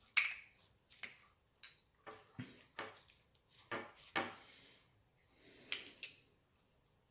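Irregular small clicks, taps and brief scrapes as the parts of a Jaguar XF key fob are handled and fitted back together after a battery change, with a cluster of scraping clicks around the middle and again near the end.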